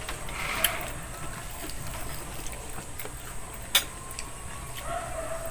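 Eating sounds from people eating fried chicken and rice by hand: quiet chewing and mouth noises, with two sharp clicks, one just under a second in and a louder one near four seconds.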